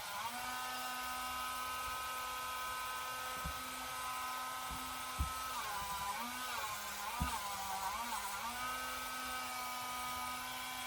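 A small high-speed electric power tool running steadily, its pitch dipping several times around the middle as it is pressed into the work, with a few sharp clicks.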